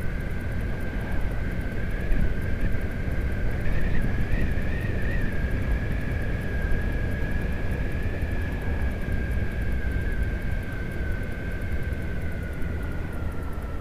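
Honda Hornet 900's inline-four engine running at a steady cruise through its newly fitted exhaust silencers, heard from a camera on the bike along with wind rumble. A steady high whine runs over it and sinks slightly near the end.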